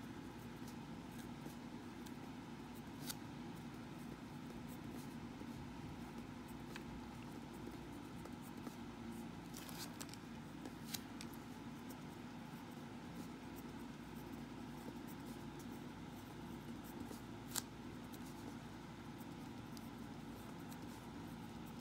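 Faint scratching of a ballpoint pen writing on paper, with a few sharp ticks scattered through it, over a steady low room hum.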